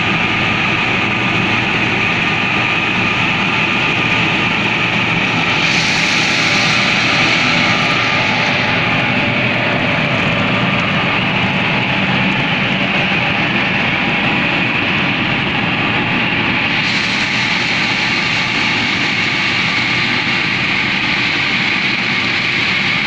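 Fiat 640 diesel tractor running steadily under load, powering a straw chopper through wheat stubble, the engine and chopper together giving a loud, steady machine noise. A higher hiss rises about six seconds in and again from about seventeen seconds.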